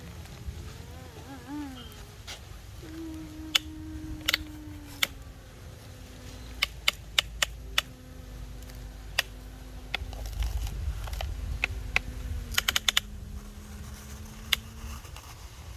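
Radio-controlled model excavator working: a small motor or pump humming at a steady pitch that shifts and stops now and then, with many sharp clicks and taps, some in quick runs.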